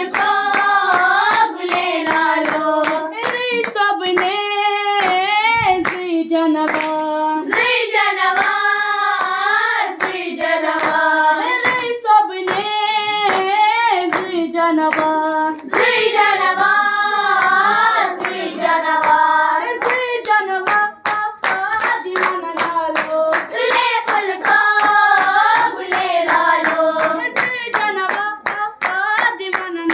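A group of schoolgirls singing a song together in unison, clapping their hands in a steady rhythm.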